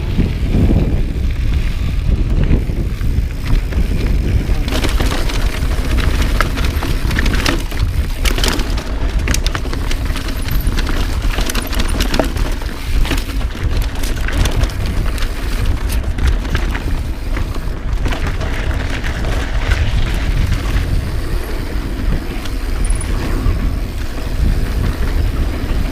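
Santa Cruz 5010 mountain bike descending a dirt downhill trail at speed: steady wind rush and tyre roar, with frequent knocks and rattles from the bike over bumps and roots.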